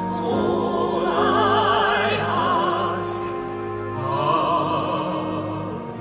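Musical-theatre ballad sung in a classical, operatic style: a singer holds long notes with wide vibrato over orchestral accompaniment. The sung line swells about a second in and again about four seconds in.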